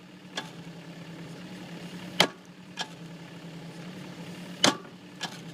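Kubota K008-3 mini excavator's engine running steadily while its bucket bangs on a small metal box: sharp metallic hits, the two loudest about two seconds in and near the end, with lighter knocks between.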